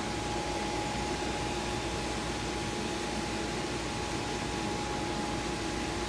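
Steady whirring hiss of running cooling fans, with a constant thin whine underneath; nothing sudden stands out.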